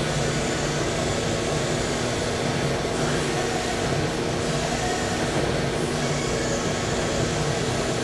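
Steady industrial machine noise from a microwave tempering tunnel's running conveyor and plant equipment: an even rumble with a constant low hum, the microwave transmitters not yet powered.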